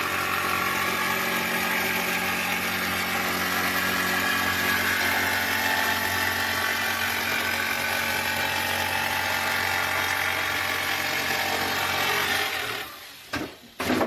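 A machine running steadily with a constant drone, which cuts off near the end and is followed by two short clicks.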